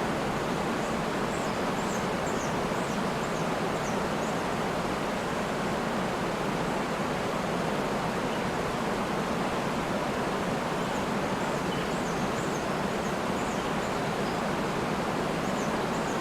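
Waterfall rushing, a steady, even wash of falling water. Faint high chirps come through in two short spells, in the first few seconds and again in the second half.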